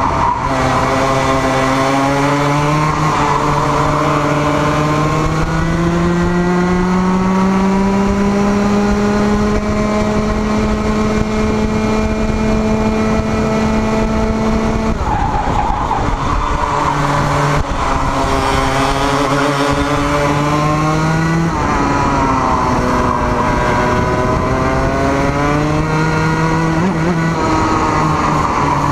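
Racing kart engine at full speed, heard from on board the kart. Its pitch climbs steadily along a long straight and drops sharply each time the kart brakes into a corner, then climbs again.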